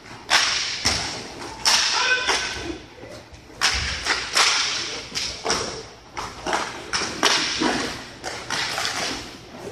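Hockey sticks, puck and rink boards during inline hockey play, giving a string of irregular sharp clacks and thuds that echo in the hall.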